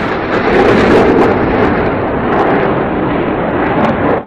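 Fighter jet's engine running at high power on takeoff, a loud, steady rush of jet noise that cuts off abruptly near the end.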